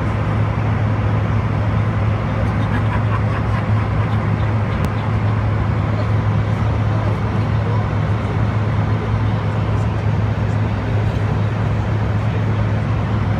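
Steady cabin noise of an airliner in flight: a constant drone of engines and rushing air with a strong low hum underneath.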